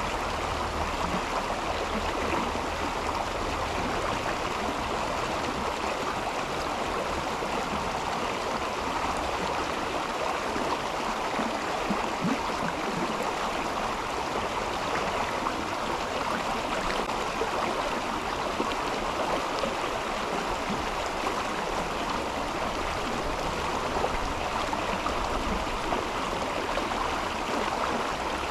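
Mountain river water flowing steadily over its bed, an even, unbroken wash of water noise.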